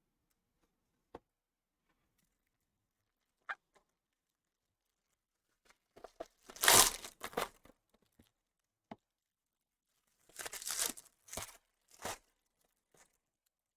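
Trading card packs being torn open by hand, the wrapper tearing and crinkling in short bursts. A couple of faint clicks come first, then the loudest tearing about six seconds in, and more tearing near the end.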